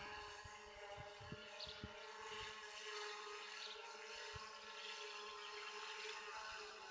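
Faint, steady hum of a DJI Phantom 2 Vision+ quadcopter's propellers in flight overhead, several held tones at once, with a few low thumps on the microphone in the first couple of seconds.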